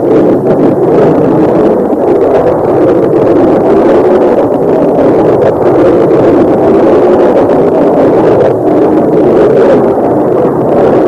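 Jet engines of a Martin B-57 Canberra, its twin Wright J65 turbojets at take-off power as it lifts off and climbs away. The sound is a loud, steady rushing noise with no rise or fall in pitch.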